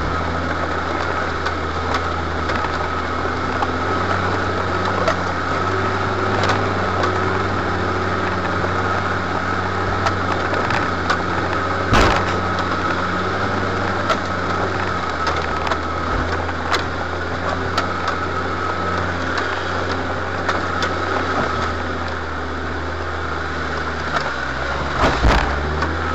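4x4 engine running steadily while the vehicle crawls along a rough forest track, heard from inside the cab. A few knocks come through the body over the bumps, the sharpest about halfway through and two more near the end.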